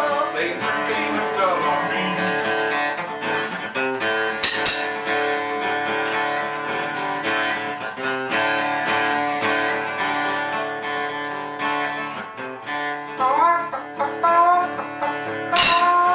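Acoustic guitar strummed steadily in a country rhythm. A sharp knock sounds about four seconds in and another near the end.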